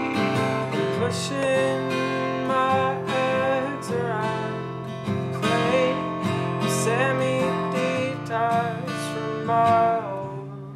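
An instrumental folk tune: a strummed acoustic guitar keeps the chords while an Irish whistle and a clarinet play the ornamented melody. The tune eases off briefly near the end.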